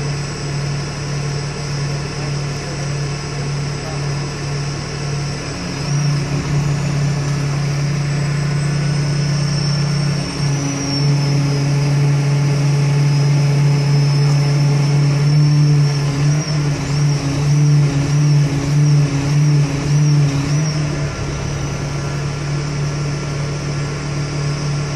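Crane engine running steadily at one pitch, growing louder about six seconds in and again from about eleven to twenty-one seconds as it works, holding and lowering a precast concrete bridge beam into place.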